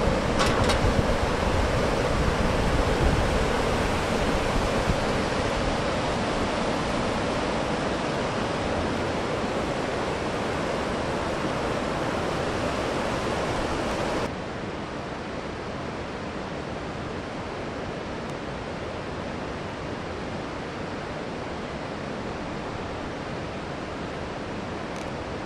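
Steady rush of a mountain river, with low rumble of wind on the microphone in the first few seconds; the sound drops a little in level about fourteen seconds in.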